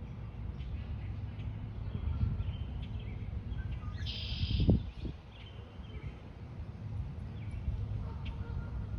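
Birds chirping and calling over a steady low outdoor rumble, with a brief low thump just before five seconds in.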